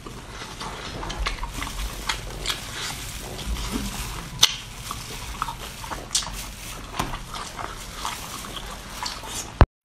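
Wet chewing, slurping and lip-smacking from a person eating whole octopus tentacles coated in chili oil, with frequent sharp clicks and smacks. It ends with one sharp click and cuts off suddenly just before the end.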